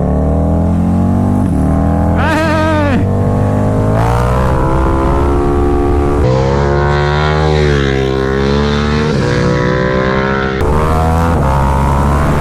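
KTM 1290 Super Duke R's V-twin engine, fitted with an Austin Racing exhaust, running under way. The revs climb and fall through the gears, with a sharp change in pitch about ten and a half seconds in.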